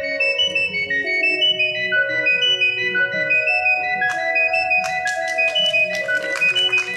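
Instrumental music: a keyboard melody of sustained, organ-like notes, with a quick run of sharp clicks joining about four seconds in.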